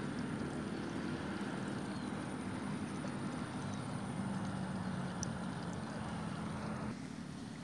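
A small engine humming steadily under a bed of noise, with the noise dropping abruptly near the end.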